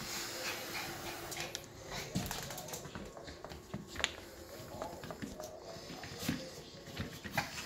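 Yorkshire terrier puppies scuffling and play-fighting with an adult Yorkie on a floor pad: scattered soft knocks, taps and rustling, with a burst of handling rustle at the start.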